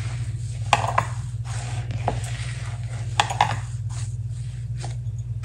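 Hands mixing and squeezing a mashed-potato and gram-flour stuffing in a plastic bowl: a few sharp clicks and taps with soft handling noise in between, over a steady low hum.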